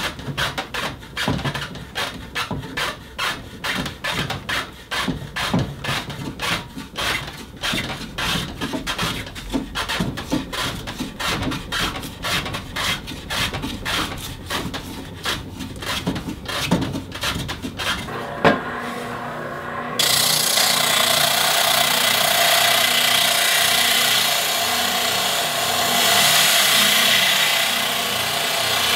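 Spokeshave shaving the curved edge of a wooden rocker in quick repeated scraping strokes. The strokes stop about eighteen seconds in, and a couple of seconds later a benchtop spindle sander runs with a steady, louder noise as a wood piece is held against its sanding drum.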